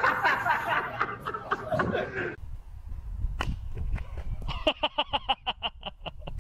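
Loud excited voices, then, after a cut, a low outdoor rumble with a few sharp clicks and a quick run of laughter near the end.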